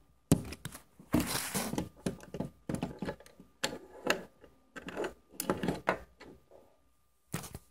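A run of sharp clicks and knocks with rubbing and scraping between them, about a dozen strokes over several seconds, ending with one last knock near the end.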